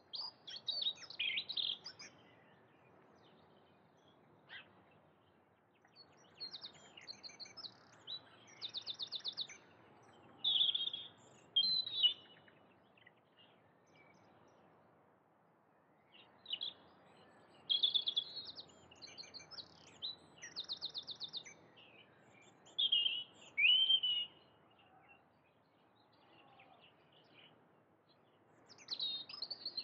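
Songbirds singing: phrases of rapid trills and slurred whistled notes, coming in bursts with pauses of a few seconds between them, over a faint background hiss.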